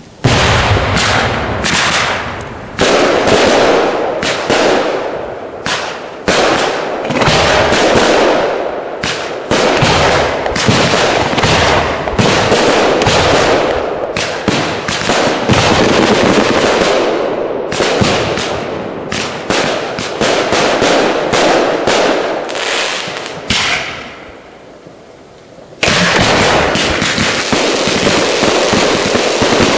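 Large professional fireworks display: rapid successions of shell bursts and bangs following one another almost without pause. Near the end a brief lull gives way to a sudden, dense barrage.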